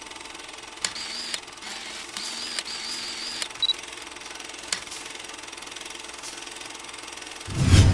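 A steady mechanical rattle sound effect under an animated title, with a few sharp clicks, a wavering high whine in the first few seconds and a short high beep. Music with a deep boom comes in just before the end.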